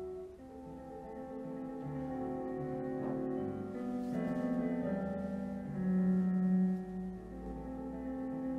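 Slow, gentle piano music with long held notes and chords, the soundtrack of an animated short film.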